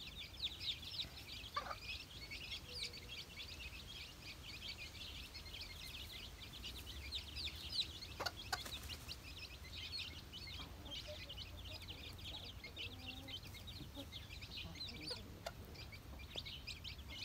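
A brood of young chicks peeping continuously in a dense high-pitched chatter, with their mother hen giving a few low clucks.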